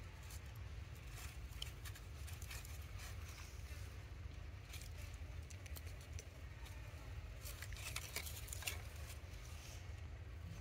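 Dry leaves rustling and crackling in small, scattered clicks over a steady low rumble.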